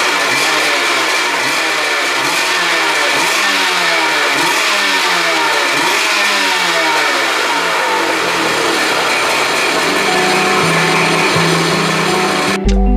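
Stand-up jet ski engine running on its trolley out of the water, the throttle blipped again and again so the pitch rises and falls about once a second, settling steadier in the last few seconds.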